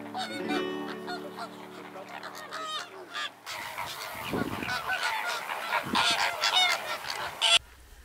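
A flock of greater flamingos calling, many harsh goose-like calls overlapping. Soft background music plays under them for the first three seconds or so. The calls grow denser after that and cut off abruptly shortly before the end.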